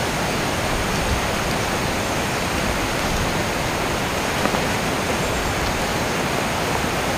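Steady rushing hiss, with a few faint light clicks from the frame poles of a small folding camping chair being put together.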